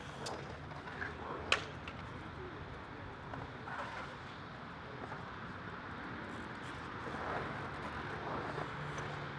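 Low outdoor background noise with faint, distant voices and a few sharp clicks, the loudest about a second and a half in.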